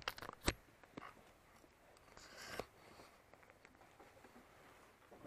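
Handling noise from the rider's camera and jacket: a cluster of sharp clicks and knocks, the loudest about half a second in, another knock at one second, then a brief rustle ending in a knock a little past two and a half seconds, over quiet surroundings with no engine running.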